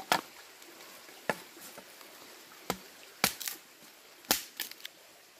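Machete chopping dry bamboo sticks for firewood: about five sharp chops at irregular intervals, some followed by quick lighter taps.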